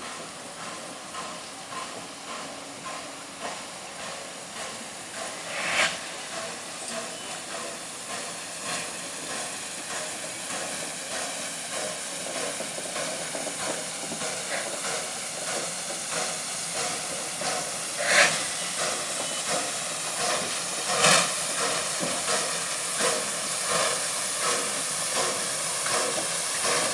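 Finnish Hr1 steam locomotive No. 1009 drawing slowly past at low speed, its steam hissing steadily over an even, pulsing beat that grows louder as the engine comes near. A few sharp metallic clanks stand out about six, eighteen and twenty-one seconds in.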